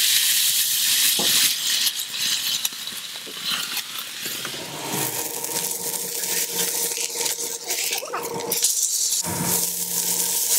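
Beef sizzling as it sears on a hot flat-top griddle, a steady loud hiss that starts suddenly as the meat goes down and dips briefly when it is turned with tongs. A faint steady hum runs underneath from about halfway in.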